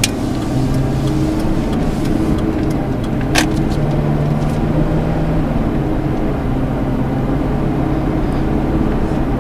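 The 5.4-litre V8 of a 2006 Ford F-150 pulling uphill under acceleration, heard from inside the cab as a steady drone whose pitch shifts up and down a little. A single sharp click sounds about three and a half seconds in.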